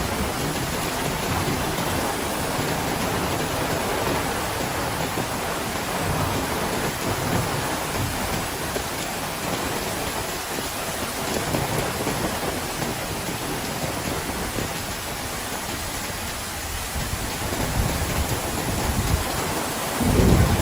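Heavy rain falling steadily in a storm, with wind and a low rumble underneath that swells suddenly near the end.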